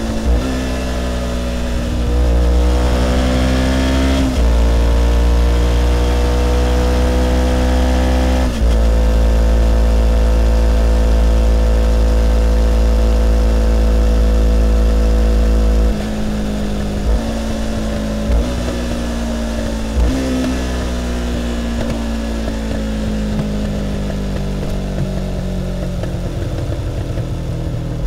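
Kawasaki Ninja 500's parallel-twin engine, heard close to its twin-carburettor intake and exhaust, pulling through the gears: the pitch climbs and then drops at upshifts in the first nine seconds, then holds at a steady cruise. About sixteen seconds in the throttle closes and the engine gets quieter. Three short blips of downshifts raise the revs, and then the pitch slowly falls as the bike slows.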